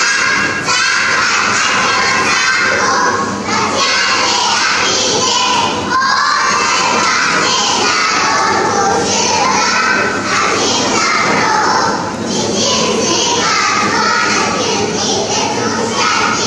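A group of young children reciting Bible verses aloud together in a loud, shouted unison chant.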